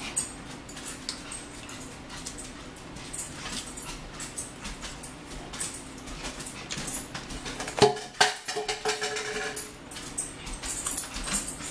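Close-up eating sounds: chewing, lip smacks and small mouth clicks, with a brief whine about eight seconds in.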